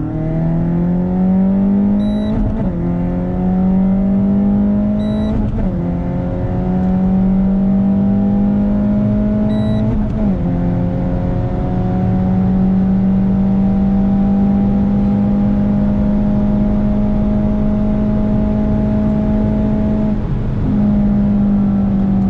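Renault Sandero RS's 2.0-litre four-cylinder engine at full-throttle acceleration, heard from inside the cabin. The engine climbs in pitch and drops back at upshifts about 2.5, 5.5 and 10 seconds in, then holds a steady high note before a brief dip near the end. A short electronic beep comes just before each of the first three gear changes.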